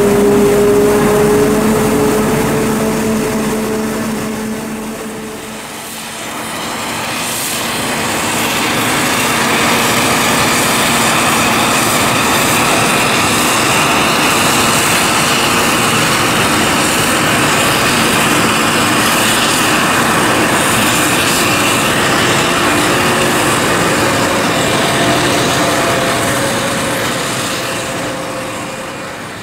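A New Holland T7 tractor pulling a silage wagon runs close by with a steady engine hum, which fades about five seconds in. After that, a Claas Jaguar 870 self-propelled forage harvester chopping maize runs under load, with a steady high whine over a dense noise.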